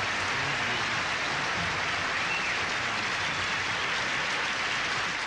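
A large banquet audience applauding steadily in a standing ovation.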